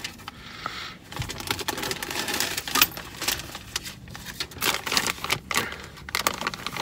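Irregular clicking and rustling as small items are handled and sorted by hand.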